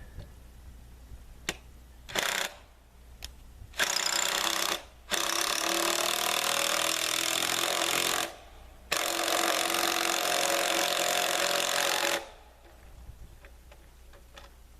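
Cordless power drill running in bursts: a short burst about two seconds in, then three longer runs of one to three seconds each, stopping about twelve seconds in.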